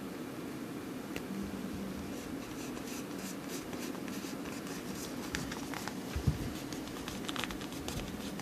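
Soft scratching and rustling of fingers handling a nylon rain jacket sleeve and smoothing a Tenacious Tape patch onto it, with a dull bump about six seconds in.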